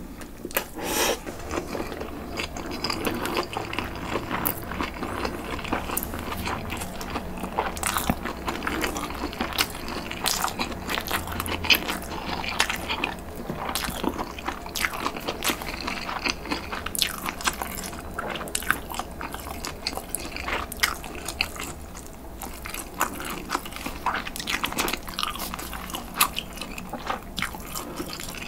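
Close-miked chewing and biting of a mouthful of spicy cold buckwheat noodles (bibim naengmyeon) with charcoal-grilled pork: a steady stream of small crunches and mouth clicks.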